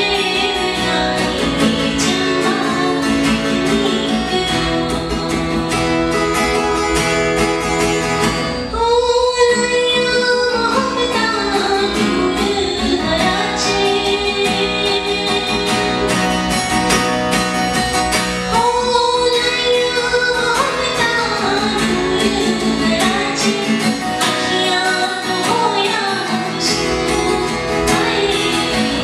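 A woman singing while strumming an acoustic guitar, with long held notes about a third of the way in and again about two-thirds of the way in.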